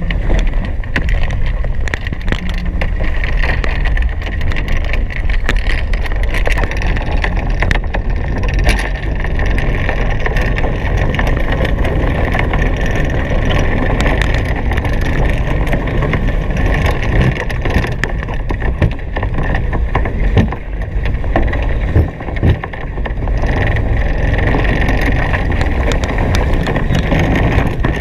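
Wind buffeting the microphone and water rushing past a Hobie Cat 16 catamaran under sail: a loud, steady, deep rumble with many small knocks and slaps throughout.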